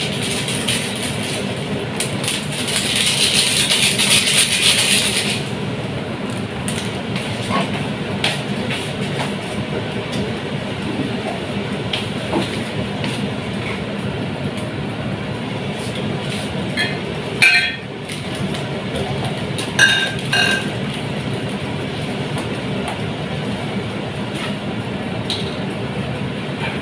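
A pot of saluyot soup boiling on an electric stove, a steady rumbling noise throughout. A louder hiss lasts a few seconds near the start, and a couple of short metallic clinks come past the middle.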